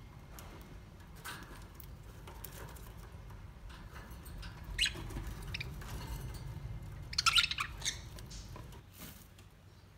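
A few short, sharp bird calls: one near five seconds and a quick run of several around seven seconds. Under them runs a low steady rumble.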